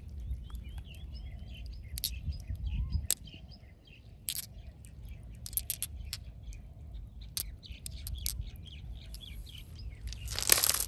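Small birds chirping in the background over a low rumble, with scattered light clicks and splashes as stones are picked out of shallow water by hand. A louder burst of splashing comes near the end.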